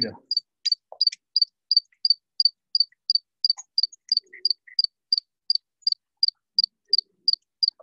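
An insect chirping steadily in a regular rhythm, about three short high chirps a second.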